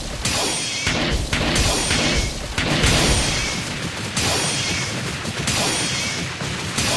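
A rapid, unbroken string of dubbed crash and impact sound effects, one hit piling on the next with a bright, noisy clatter.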